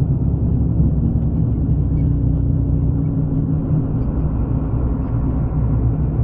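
A vehicle running with a steady low rumble and a constant engine drone.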